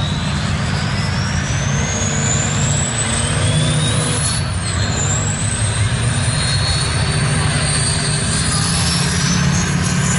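Turbo diesel mega truck under load, its engine rumbling low beneath a loud turbocharger whistle. The whistle rises steadily in pitch, drops sharply about four and a half seconds in, then climbs again.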